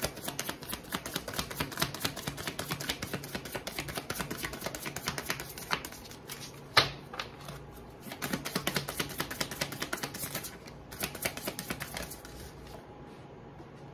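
A deck of cards being shuffled by hand: runs of rapid flicking clicks, one sharper snap about seven seconds in, then two shorter runs of clicks before it goes quiet near the end.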